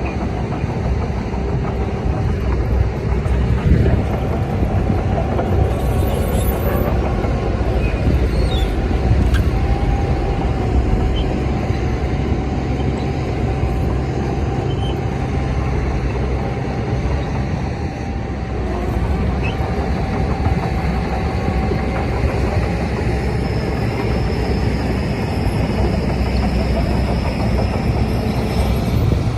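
Heavy earthmoving machinery's diesel engine running steadily, a low rumble with a steady whine on top.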